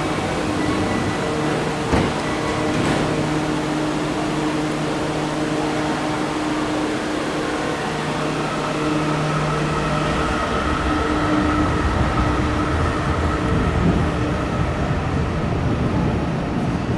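Yokohama subway train standing at a platform, running with a steady electrical hum, with a single knock about two seconds in. From about ten seconds a train's low rumble and a steady whine build as a train moves along the platform.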